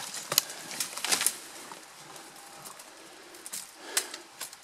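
Dry branches and twigs rustling and snapping as brushwood is handled on a pile, with a cluster of sharp cracks about a second in and a few more near the end.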